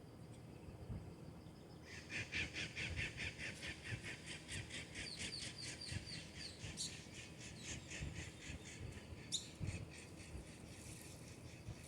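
A bird calling a rapid chattering series of harsh repeated notes, starting about two seconds in and keeping on, with a few downward-slurred notes mixed in.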